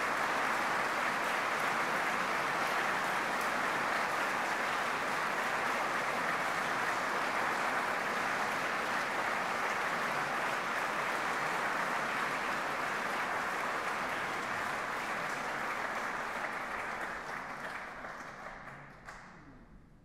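Audience applauding, a dense steady clapping that thins out over the last few seconds and stops near the end.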